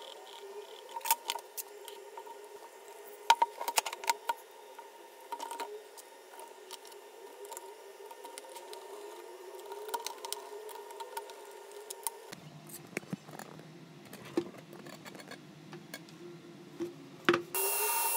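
Scattered light clicks and taps of small parts and tools being handled, with a louder hissing burst about a second long near the end.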